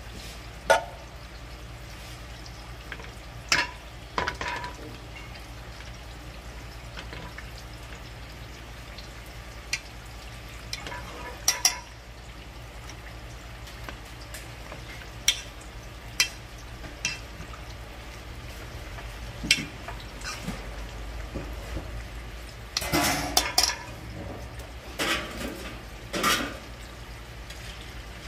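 Metal utensils knocking and scraping against an aluminium pot as boiled potatoes are stirred and then mashed: scattered sharp clicks over a steady low hum, with a closer run of knocks a few seconds before the end.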